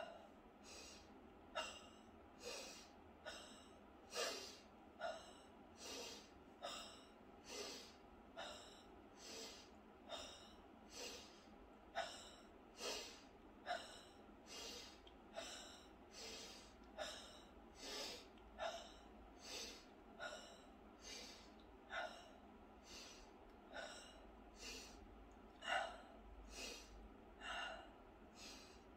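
Kapalabhati breathing: a woman's short, forceful exhalations through the nose, a little faster than one a second, in an even rhythm.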